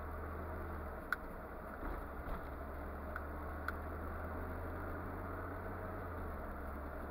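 Steady engine and road drone of a car being driven, heard from inside the cabin. A sharp tick about a second in, a few low bumps around two seconds in, and two fainter ticks a little later.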